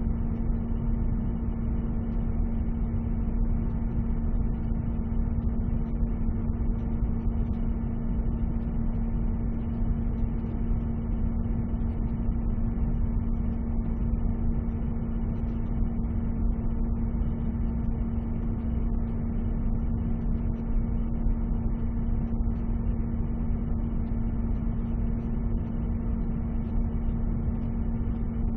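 Boiler room ambience: a steady drone of heating machinery, with a constant low hum over a rumble and an even hiss.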